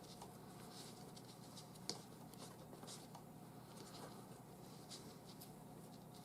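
Faint rustling and scratching of 550 paracord being handled and pulled tight as a knot is snugged down, with scattered small ticks.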